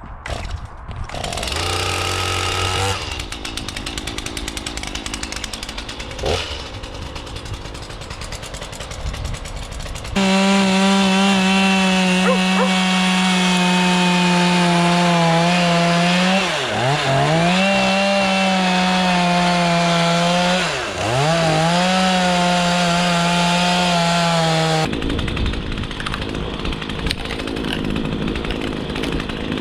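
Two-stroke chainsaw running and cutting into a Scots pine log while blocking out a carving. In the middle stretch it runs at a high, steady pitch, and twice the pitch sags sharply and recovers as the chain bites into the wood.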